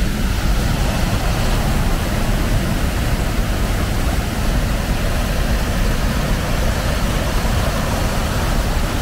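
A steady, loud rumbling drone of a vehicle in motion, heaviest in the low end with a hiss above it, unchanging throughout.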